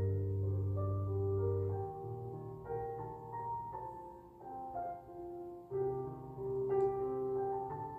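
Background music: a gentle piano tune with sustained chords and a low bass note.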